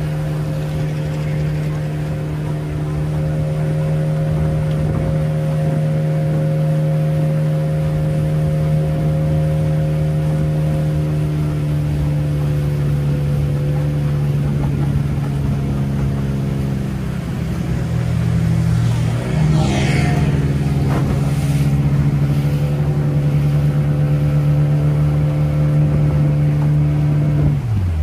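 Motorboat engine running steadily at cruising throttle, its pitch shifting slightly about two-thirds of the way through, with a brief hiss of spray or wind around then. The engine is throttled back right at the end.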